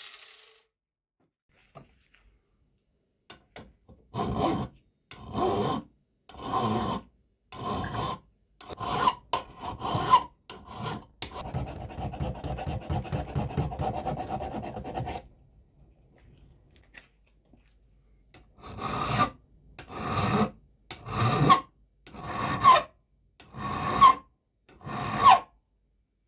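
Hand file being drawn across the steel of an old wrench, stroke by stroke, with a slight metallic ring. A run of quick short strokes in the middle blurs into one continuous scrape, then evenly spaced strokes come about one a second near the end.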